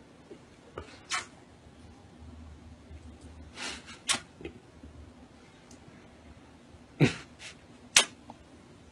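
About five short, sharp smacks and puffs close to the microphone, a few seconds apart, the loudest two about seven and eight seconds in: a man's kisses and breath at a kitten held to his face, which pushes its paws against his mouth.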